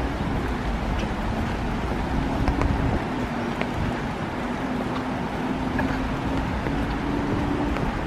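Steady rain falling on forest foliage and a wet boardwalk, an even hiss with scattered faint drips and a faint low hum underneath.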